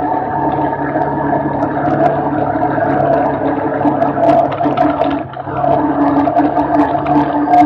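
Quad-bike engine running steadily under way, a droning hum with many small clicks and knocks over it. It drops away briefly about five seconds in, then picks up again.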